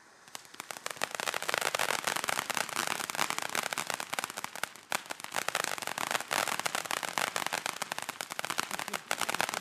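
Weco 'Monster' firework fountain in full burn, its spray thick with crackling effects: a dense, continuous crackle of many small pops, with a brief lull about five seconds in.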